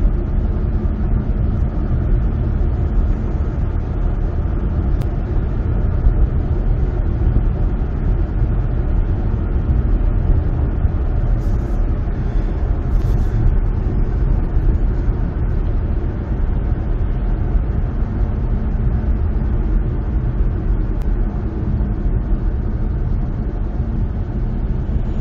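Steady low rumble of a car in motion heard inside the cabin: road and tyre noise with engine hum from a 2018 Chevy Malibu with the 1.5-litre turbo engine, cruising at about 40 to 50 mph. The car is driving normally on a post-repair test drive.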